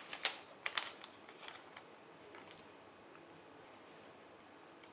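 A few sharp, light clicks in the first second, then faint scattered ticks: fingers and tweezers handling a small replacement Wi-Fi flex cable inside an opened iPad 2.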